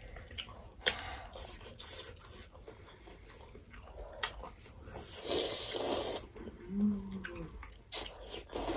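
Close-miked eating sounds: wet mouth clicks and chewing, with a loud slurp of spaghetti lasting about a second, some five seconds in, and another near the end. A short hum comes about seven seconds in.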